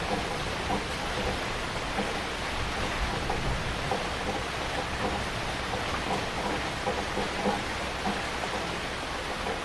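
Heavy rain falling steadily, with many individual drops heard hitting a surface.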